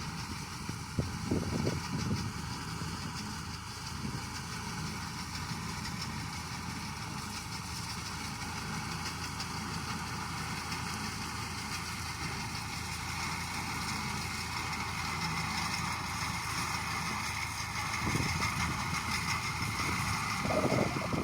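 Tractor engine running steadily, driving a reaper that cuts wheat, with a broad hiss over the engine and a few louder knocks near the start and near the end.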